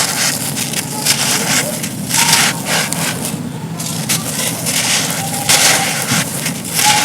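Dry, crumbly cones being crushed and broken apart by hand, giving crisp crunching and crackling about once a second with a short pause a little past halfway.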